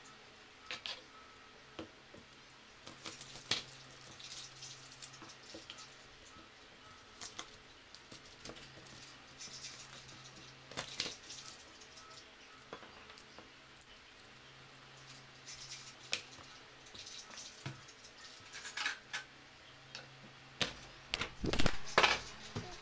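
Small kitchen knife cutting garlic cloves on a plastic cutting board: irregular taps, clicks and knocks. Near the end, loud bumps and rubbing as the camera is picked up and handled.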